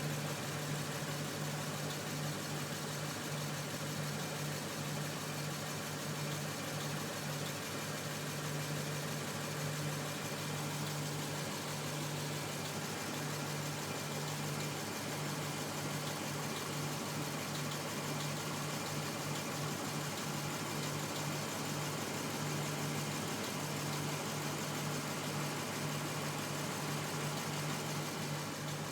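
Lexus IS F's 5.0-litre V8 idling steadily with a knock, which the owner ties to Toyota's faulty valve springs.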